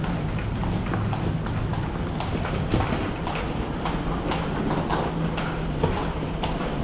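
Footsteps on a tiled floor at an even walking pace, about two steps a second, over a steady low hum.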